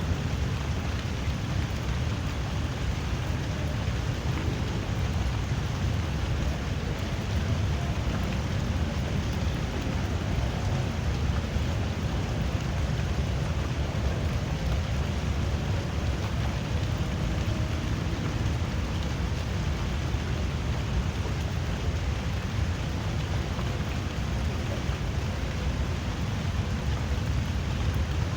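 Drizzling rain falling steadily: a continuous even hiss with a strong low rumble underneath.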